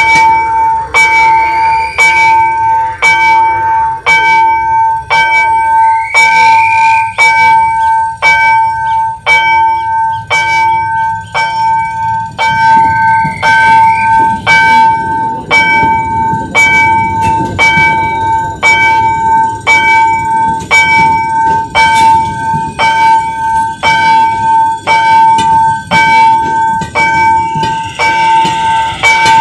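Railroad crossing bell ringing in a fast, regular beat. From about twelve seconds in, the rumble of a commuter train passing over the crossing joins it.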